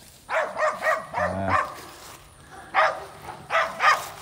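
A dog barking: a quick run of barks in the first second and a half, then a few single barks near the end.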